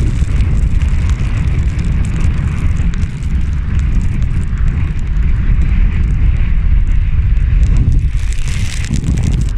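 Strong wind buffeting the microphone, a loud, gusting low rumble, with a steady hiss from the sea and rain beneath it.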